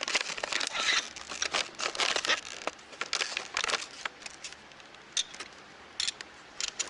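Crinkling and rustling handling noise, dense for the first few seconds, then a few separate clicks near the end.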